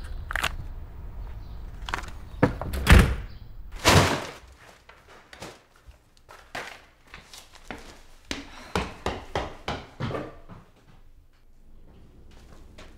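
A front door shut with a loud thunk about three seconds in, followed by quieter scattered knocks and rustles.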